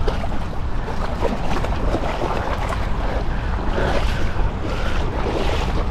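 Wind buffeting the microphone with a steady rumble, over the sound of moving water.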